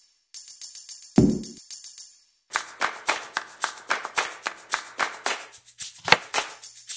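Background music. A light, quick rhythm is cut by a loud, deep boom about a second in that falls in pitch. After a brief pause, a brisk beat of sharp percussion hits, several a second, carries on.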